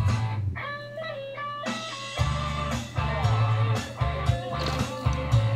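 Background rock music, an instrumental guitar passage between sung lines. The bass and beat drop out for about a second and a half, leaving the guitar alone, then come back in about two seconds in.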